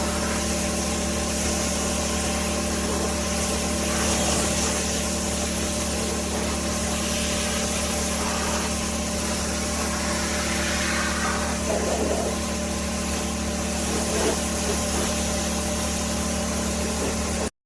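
Pressure washer running steadily, a constant motor hum under the hiss of the water jet; it cuts off suddenly near the end.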